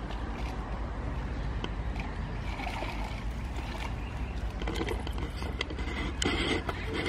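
Pond water splashing and sloshing as a man handles a cast net and wades in from the bank, loudest a little after six seconds, over a steady low rumble.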